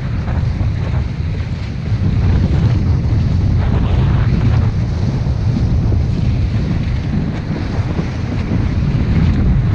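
Strong wind, 22 to 28 knots, buffeting the microphone aboard a small sailing dinghy in a steady loud rumble, with water rushing past the hull.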